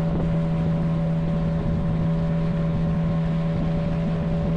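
Boat engine running at a steady speed: an even, unchanging hum over the noise of water and wind.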